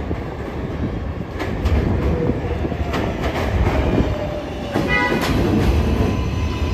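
R143 subway train pulling into an elevated station: steady rumble of wheels on the rails with clicks over the rail joints, and a faint falling whine. A brief high tone sounds about five seconds in.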